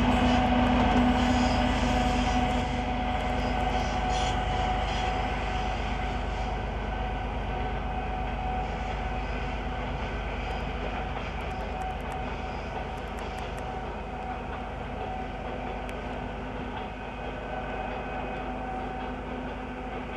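A 2M62U diesel locomotive section's two-stroke diesel engine runs under power as it pulls its train away, with a steady low rumble and engine tones. The sound fades steadily as the locomotive recedes.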